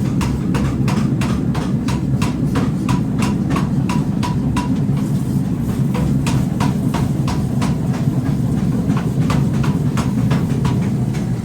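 Factory forging machinery running with a steady low drone and rapid, even metal strikes, about four a second, each with a short ring.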